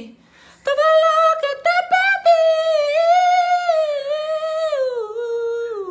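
A man singing unaccompanied: after a short pause he sings one long, drawn-out phrase with held notes that waver and slowly fall in pitch toward the end.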